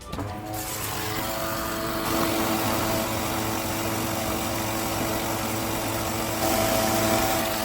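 A small electric pump switches on and runs steadily, humming over rushing water, circulating vinegar through a tankless electric water heater to flush out scale.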